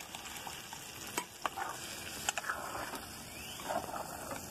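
Red chile sauce sizzling as it is poured onto cooked pork in a hot clay cazuela, with a metal spoon stirring and clinking against the pot a few times.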